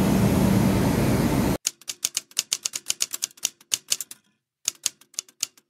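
Typewriter key-clicking sound effect: a quick, uneven run of sharp clicks as title text types onto the screen, a short pause, then a few more clicks. Before it, a steady rush of railway platform noise cuts off suddenly about a second and a half in.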